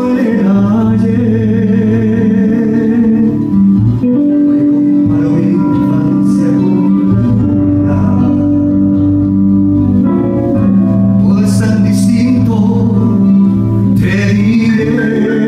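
A live band plays a song: nylon-string guitar over long held notes from the accordion and a bass line. A male voice sings a line near the start and again near the end.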